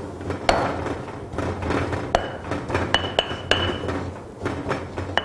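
Stone pestle pounding grilled catfish meat in a granite mortar: a run of dull thuds, about one or two a second, with several sharper ringing clinks of stone on stone. The fish is being pounded lightly into fluffy shreds for crispy fluffy catfish.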